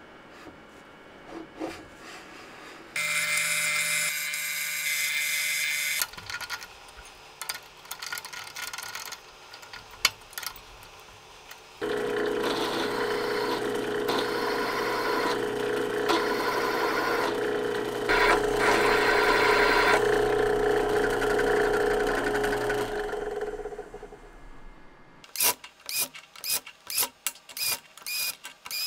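Machine-shop sounds on a small steel part. A machine runs briefly with a high whine, then a drill press runs for about ten seconds while drilling a hole through the part. Near the end comes a quick run of sharp clicks.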